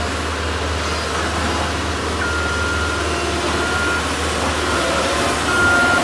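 Caterpillar CS533E vibratory soil compactor running with a steady low diesel engine hum; from about two seconds in its back-up alarm sounds a series of high beeps, the sign that the machine is in reverse.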